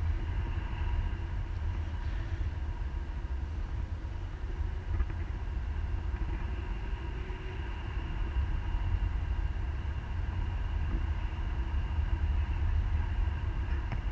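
Airflow of a paraglider in flight buffeting an action camera's microphone: a steady low wind rumble, with faint steady high tones above it.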